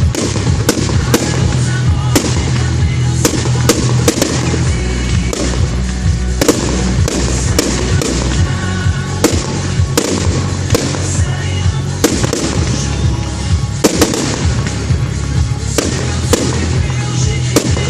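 Fireworks bursting in quick succession, many sharp bangs and crackles a second, over music with a steady low bass.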